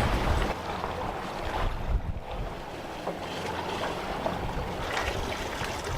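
Wind and sea water rushing along the hull of a wooden sailboat under way, with gusts of wind buffeting the microphone.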